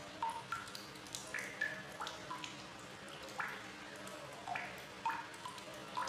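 Water drops and bubbles plinking irregularly, two or three short pitched plops a second, each at a different pitch.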